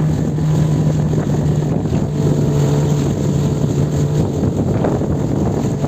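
Motorboat engine running with a steady hum, over the rush of wind and water.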